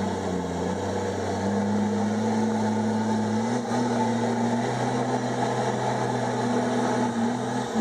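Komatsu D51EX bulldozer's diesel engine running steadily under work. Its pitch sags slightly in the first second or so and comes back up about three and a half seconds in, as the load on the engine changes.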